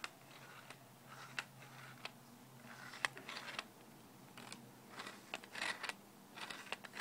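Handling noise from a camera with a Canon 80-200mm zoom lens: scattered clicks and short scraping rustles at irregular intervals, over a faint steady hum.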